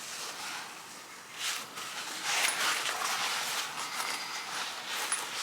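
Rustling and handling of a fabric lunch tote and its packaging, in irregular bursts that are loudest around the middle.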